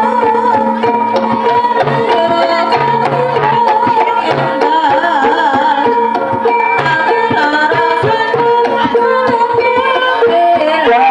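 Loud live traditional music played through a sound system: hand drums beating over held tones and a wavering melody line. It is loud enough to overload the recorder.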